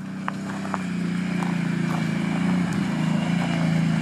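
Small engine of a quad bike running steadily and growing louder as it comes closer, with a few light clicks over it.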